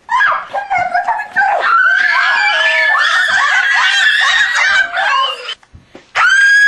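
A group of girls screaming and shrieking at once, high-pitched, with laughter mixed in; after a short break, one long loud scream starts near the end.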